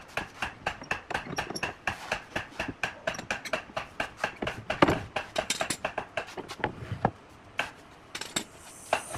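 Metal pipe clamps being loosened and taken off a glued-up wooden panel: a rapid run of metallic clicks and clanks, with a louder knock about five seconds in and a brief lull near the end.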